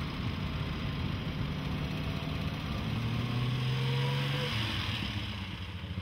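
Vintage roadster's engine running as the car drives along, its pitch climbing under acceleration from about halfway in, then dropping as the revs ease off.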